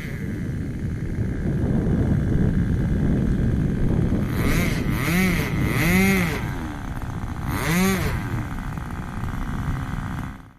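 Small model-aircraft glow engine running under a steady rumble, its pitch swooping up and down in short arcs several times around the middle.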